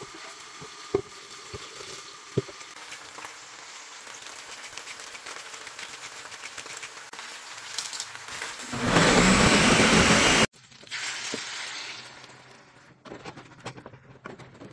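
A countertop blender runs loudly for about a second and a half, puréeing charred tomatillos and chiles, and cuts off abruptly. Before it come light knocks and handling clicks. Near the end a wooden spoon knocks and scrapes in a clay pot.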